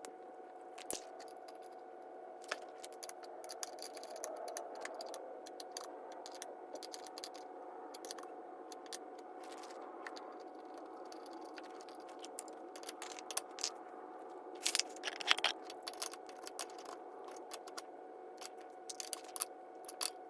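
Scattered small metallic clicks, clinks and scrapes of air fittings and an adapter being handled and screwed onto an air compressor, with a busier cluster about two-thirds of the way through, over a steady faint hum.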